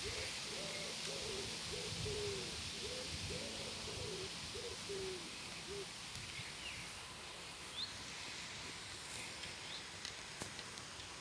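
A pigeon cooing outdoors: a run of low, repeated coos that stops about five and a half seconds in. After that, small birds chirp faintly over a steady background hiss.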